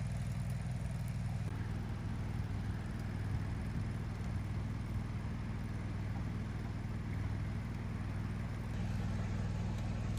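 A welding rig's engine-driven generator running steadily: an even, low engine drone with no change in speed.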